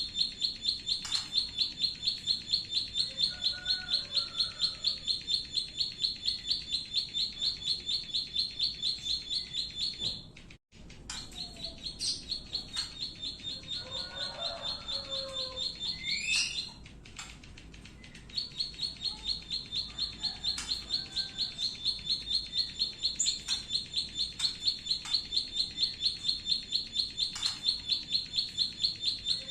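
Small songbird giving a rapid, even 'klik klik' call of sharp high notes, about four a second, as used on masteran tutor tracks for cage birds. The train breaks off briefly about ten seconds in and gives way to a few looser calls with a rising whistle before it resumes. Softer chirps of other birds sit underneath.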